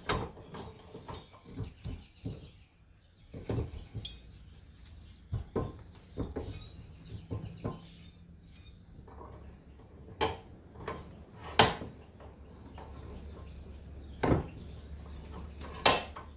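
Metal motor stator and bench vise knocking and clanking as the stator is set in the jaws and the vise handle is worked: a string of light knocks and clicks, then three sharper metal knocks in the last five seconds. Faint high chirps in the first few seconds.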